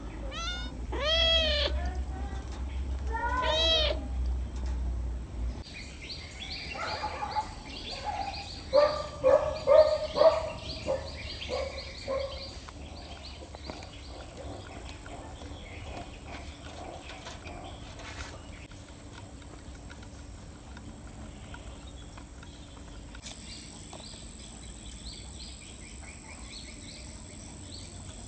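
Cats meowing twice early on, then a loud, rapid run of short animal calls lasting several seconds, followed by a steady high-pitched insect drone that grows louder near the end.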